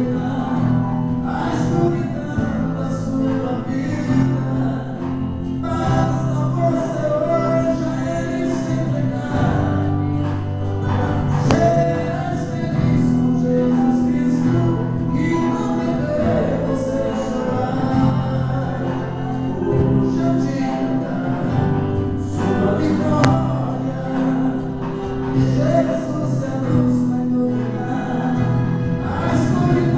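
Live gospel song: two men singing into microphones over an amplified acoustic guitar and a steady accompaniment, without pause.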